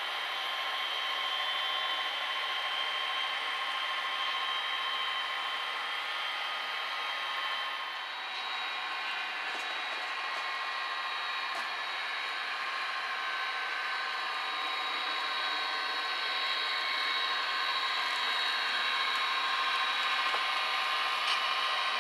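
HO scale model diesel locomotives running along the layout track: a steady whir of small motors and wheels on rail, with thin steady whines over it, shifting slightly about eight seconds in and growing a little louder near the end.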